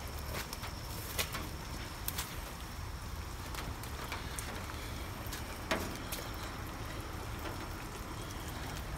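Handheld walk through wet brush: leafy branches brushing and scraping past, with scattered twig-like clicks over a steady low rumble. A short squeak stands out about six seconds in.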